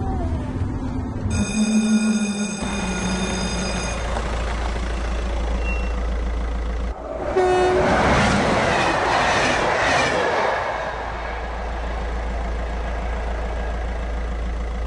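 A train horn sounds, then a train rushes past at speed, loudest from about eight to ten seconds in, over a steady low hum.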